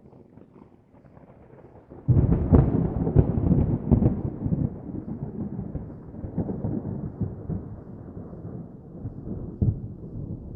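A thunderclap: a low rumble, then a sudden loud crack about two seconds in with crackling peals, rolling on and slowly fading, with one more sharp clap near the end.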